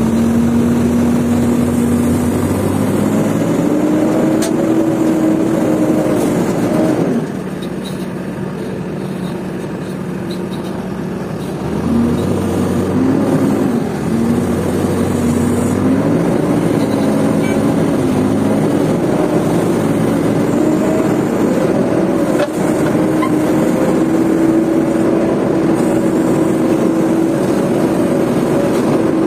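JCB backhoe loader's diesel engine running hard under load while pushing a loaded truck uphill. It eases off about seven seconds in and picks up again about five seconds later, then holds a steady, high-revving pitch.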